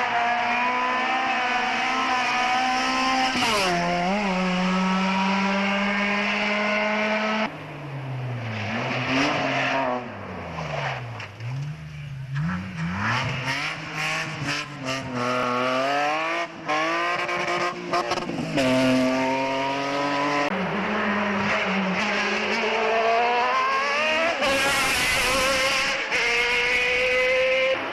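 Several hillclimb race cars accelerating hard one after another, their engines rising in pitch through the gears and dropping at each upshift. A loud hiss comes in about three-quarters of the way through.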